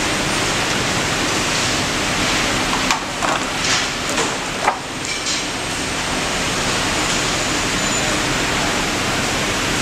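Steady, even hiss of workshop background noise with a low hum under it. About three to five seconds in come a few short knocks and rustles as the fabric and the clear plastic sewing template are handled.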